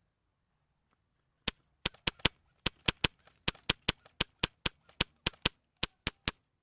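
Airsoft gun firing a quick string of about twenty single shots, sharp cracks a fraction of a second apart at an uneven, trigger-pulled pace, starting about a second and a half in.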